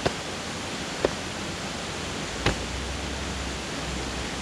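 Steady rush of river rapids, with three short sharp knocks in the first half.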